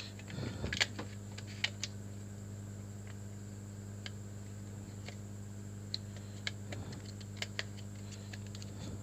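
Small scattered clicks and taps of plastic and metal parts being handled as the LCD display is fitted into a motorcycle digital meter, in a cluster in the first two seconds and again about six to seven and a half seconds in. A steady low electrical hum runs underneath.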